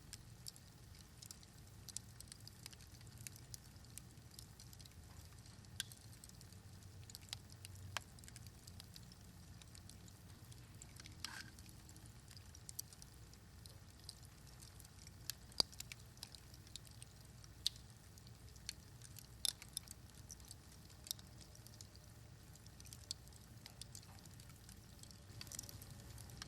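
Faint, irregular sharp clicks and ticks, scattered through a quiet outdoor background, with a short falling tone about a third of the way in.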